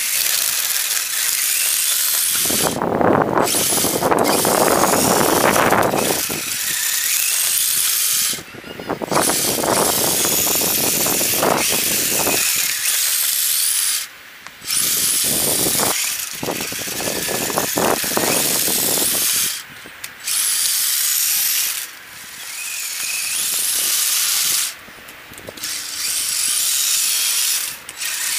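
Radio-controlled plow truck's motor and gears whining in bursts, cutting off and starting again several times as the throttle is worked, with rougher noise swelling during some of the runs.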